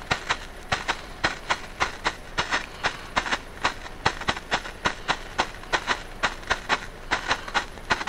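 Green strobe Bengal flare burning and popping in quick, uneven pulses, about five sharp pops a second, as it flashes.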